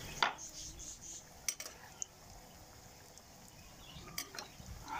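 Slotted metal spoon clinking against a metal karahi while samosas are turned in hot oil, over a faint steady sizzle of deep-frying. A handful of sharp clinks, the loudest just after the start.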